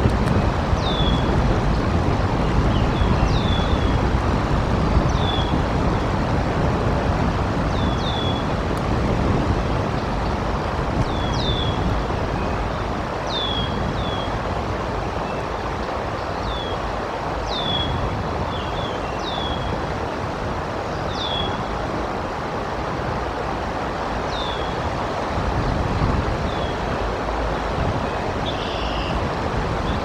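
Gusty wind buffeting the microphone over a steady rush of rain and flowing water. A bird repeats a short, high, downslurred chirp every second or two throughout.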